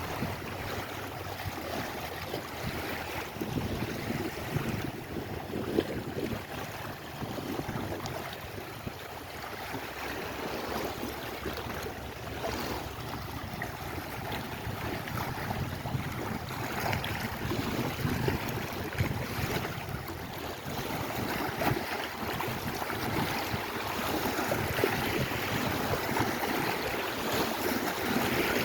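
Lake Erie waves washing and lapping at the shore, an unbroken surge and hiss that swells a little toward the end, with wind buffeting the microphone.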